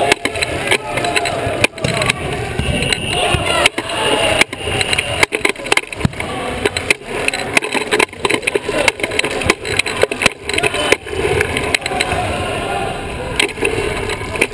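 Sports wheelchair rolling fast across a hardwood gym floor, heard from on the chair's own frame: a rumble of wheels with frequent sharp knocks and rattles of the frame, and shouting voices ringing in the gym.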